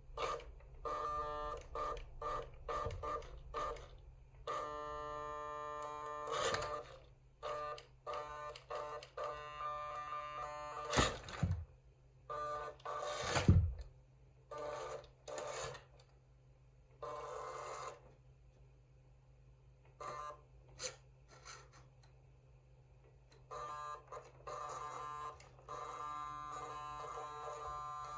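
Small electric motor and gearbox of a WPL C24 RC crawler whining in repeated short bursts of throttle, stopping and starting. Two loud thumps come near the middle.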